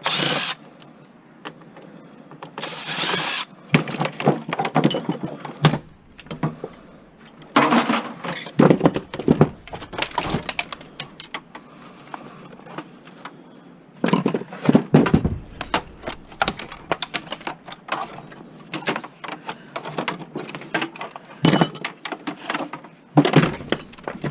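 Irregular knocks, clanks and rattles of metal parts being hit and pulled apart while scrap is dismantled by hand, with a few short noisy bursts in the first few seconds.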